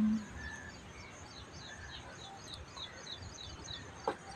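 A bird calling in the background: a steady run of short, high, falling chirps, about three a second, over faint outdoor noise. A single sharp click comes near the end.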